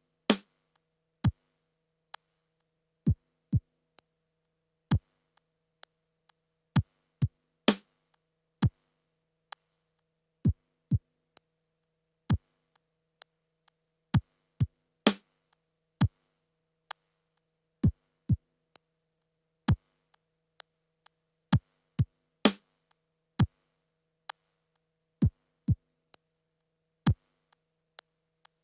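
Yamaha PTX8 electronic percussion module playing a sparse sequenced drum machine pattern through an Akai EX70C compressor. Kick drums drop in pitch, with a louder full-range snare-like hit about every seven seconds, over a faint steady hum.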